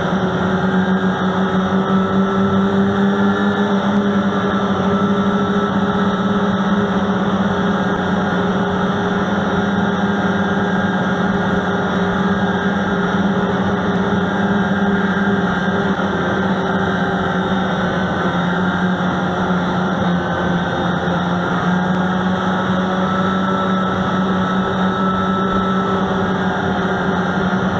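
Snowmobile engine running at a steady, even pitch while riding along a trail, heard from the rider's seat, with a rushing noise underneath.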